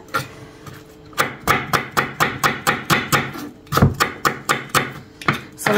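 Kitchen knife slicing onion on a wooden chopping board: quick, regular knife strokes against the board at about four a second, starting about a second in, with one heavier, deeper knock near the middle.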